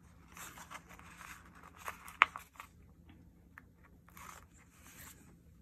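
Small planner stickers being peeled off a paper sticker sheet with metal tweezers: short papery rustles and scrapes, with a few light ticks and one sharp click a little over two seconds in.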